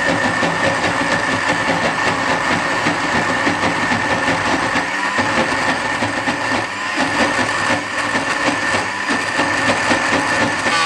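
Sanford juicer-blender motor running at full speed, grinding soaked moong dal and dried red chillies in its jar, a steady high whine over the churning of the still-coarse dal.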